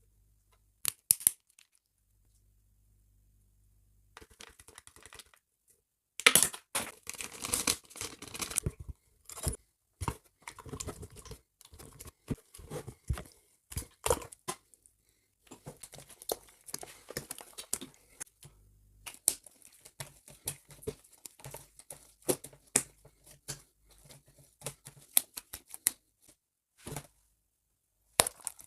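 Plastic packaging being torn open and crinkled by hand, in irregular bursts of crackling and tearing. A few sharp clicks come first, then denser crackling starts about six seconds in and continues in bursts with short gaps.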